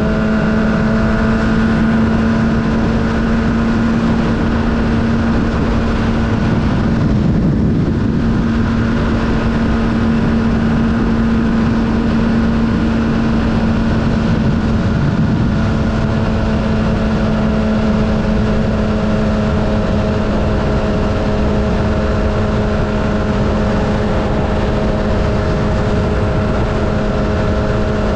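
Sport motorcycle's engine running at a steady freeway cruise, one unchanging pitch, with a constant rush of wind and road noise.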